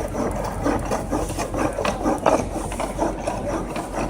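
Foot-driven reciprocating wooden lathe at work, its spindle turning back and forth: irregular knocking and rattling of wooden parts with the tool scraping the turning wood.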